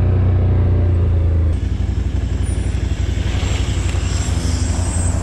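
ATV engine running with a steady low hum that drops off and turns rougher about a second and a half in. A van then passes close by on the dirt trail, adding its engine and the rush of tyres on dirt.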